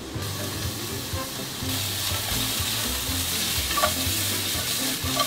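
Diced red onion and garlic sizzling in a hot frying pan while being stirred with a wooden spatula; the sizzle grows louder about two seconds in.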